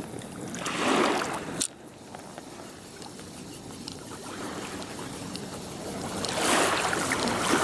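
Small waves lapping and sloshing against a harbour wall, swelling about a second in and again near the end, with one sharp knock just before two seconds in.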